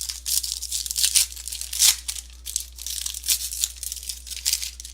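Trading-card pack wrapper being torn open and crinkled: a dense run of crackling rips, loudest about two seconds in.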